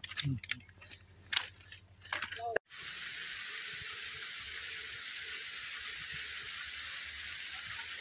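A steady, even water-like hiss begins abruptly after a cut about two and a half seconds in. Before it there are faint voices and a few light clicks.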